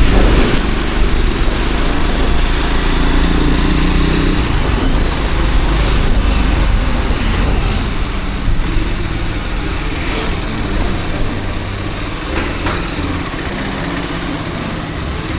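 Triumph Scrambler 400X's single-cylinder engine running as the motorcycle is ridden in traffic, with a heavy low rumble of wind on the rider's microphone. The overall level eases off gradually over the later seconds.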